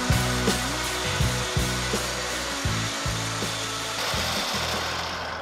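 3D-printed plastic shredder running: a 775 DC motor drives yellow printed cutter shafts through a plastic gearbox as they chew up leafy greens. A steady mechanical hum runs through it, broken by irregular short cracks and crunches as the leaves are torn and pulled through.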